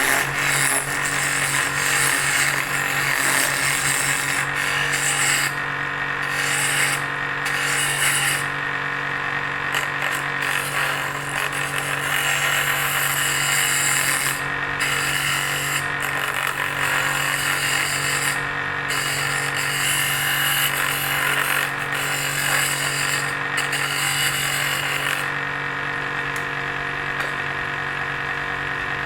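Bench drill press motor running steadily while a wooden handle spinning in its chuck is turned with a hand-held cutting tool, scraping in repeated passes with short breaks. Near the end the scraping stops and only the motor hum continues.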